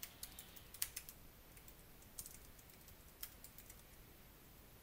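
Faint computer keyboard typing: scattered keystrokes, most of them in the first second, with a few more around two and three seconds in.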